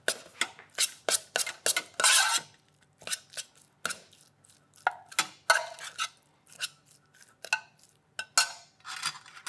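A metal spoon clinking and scraping against a stainless steel container in short, irregular strokes, as raw minced beef is gently mixed for steak tartare.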